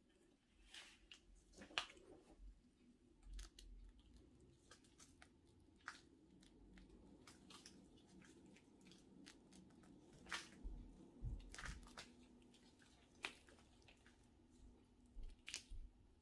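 Faint, scattered crunching and crackling of potting soil and roots as a plant's root ball is handled and loosened with gloved hands, with a few sharper crackles here and there.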